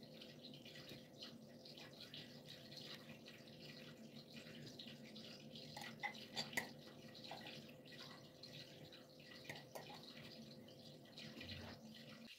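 Faint room tone with a steady low hum, and a few soft clicks and wet scrapes of a spoon as zucchini salad is spooned from a glass bowl onto a ceramic plate. The clicks are strongest about six seconds in.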